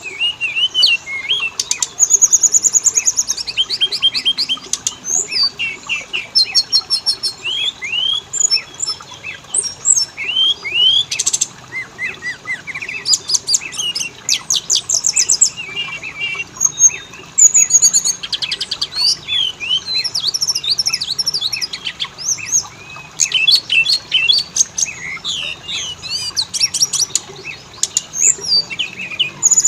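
Oriental magpie-robin (kacer) singing without pause: a varied stream of whistled notes, quick trills and fast rattling chatter.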